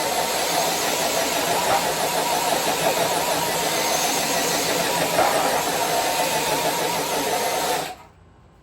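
Electric RC crawler truck's motor and geared drivetrain running under load as it drags a weighted pulling sled, with a steady high whine over the gear noise. It cuts off suddenly near the end as the truck stops.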